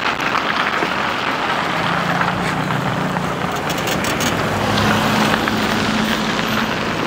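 Street traffic on a wet, slushy road: a steady hiss, with a car's engine hum coming in about two seconds in and fading near the end as the car pulls up.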